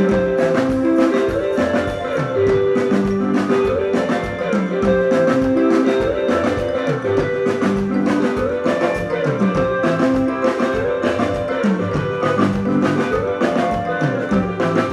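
Live soukous band playing an instrumental dance section: short repeating melodic riffs over a steady, busy drum beat, with no singing.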